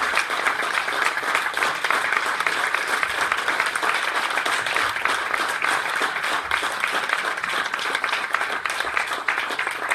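A congregation applauding: many hands clapping at once in a dense, steady patter.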